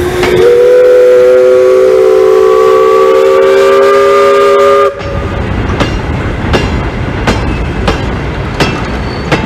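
Bagnall industrial saddle tank steam locomotive sounding a loud two-note steam whistle for about five seconds, rising a little in pitch before it cuts off sharply. Then the loaded freight wagons roll past, their wheels clicking over the rail joints about every 0.7 seconds.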